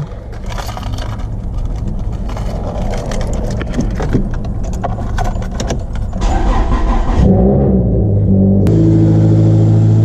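Car keys jangle and rattle at the ignition, then a Toyota four-cylinder engine cranks over and catches near the end, settling into a steady idle.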